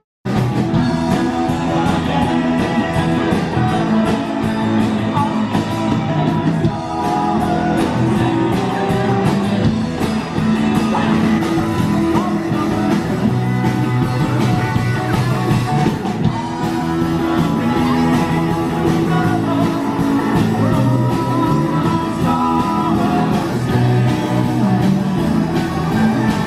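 Background rock music with guitar and a singing voice, set to a steady beat.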